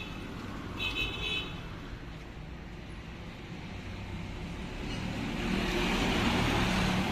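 Road traffic: a vehicle horn gives a short beep about a second in, then traffic noise swells as a vehicle passes, loudest near the end.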